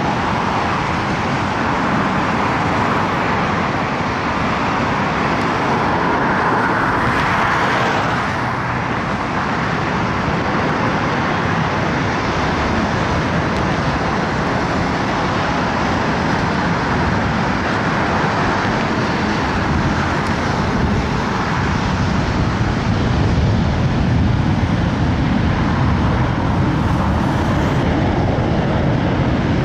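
Airbus A220-300's Pratt & Whitney PW1500G geared turbofans on approach and landing, a steady rushing jet noise that grows a little louder in the second half, mixed with road traffic noise.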